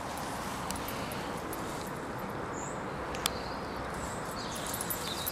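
Steady outdoor background rush with a few faint, short, high chirps and one sharp click a little over three seconds in.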